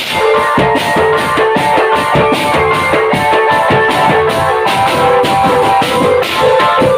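Loud live band music: drums beating a fast, even rhythm under a melody of held notes.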